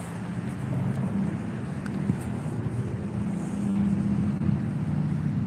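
A steady low engine rumble from a vehicle running nearby, swelling over the first few seconds and then holding, with wind buffeting the microphone.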